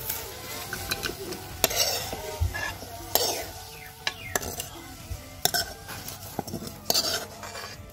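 Metal spoon scraping and clinking against a metal wok as cooked okra is scooped out onto a plate: a string of separate scrapes and clinks.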